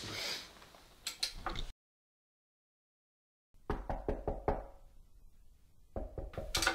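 Knocking on a door: a run of quick raps a few seconds in, then another, louder run near the end.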